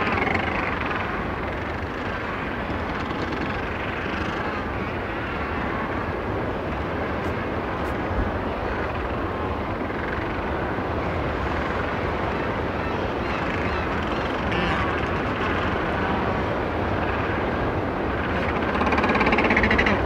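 Macaroni penguin colony calling en masse, a dense and steady din over the distant wash of the sea. A closer penguin's pitched call stands out at the start and again near the end.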